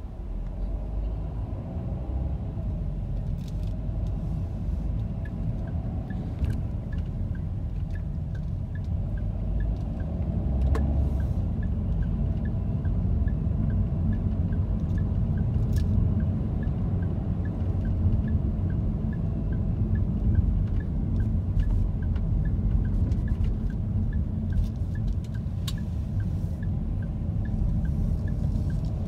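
Low road and engine rumble inside a car's cabin while driving. From about five seconds in to near the end, a faint, even ticking like a turn-signal indicator, with a few odd clicks and knocks.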